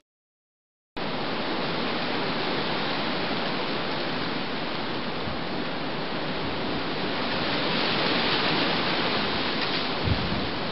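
Steady rushing noise of strong wind and rough sea, starting abruptly about a second in after a moment of silence.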